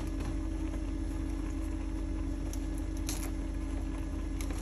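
Saucepan of noodles bubbling at a boil, with soft pops and a few faint clicks over a steady low hum.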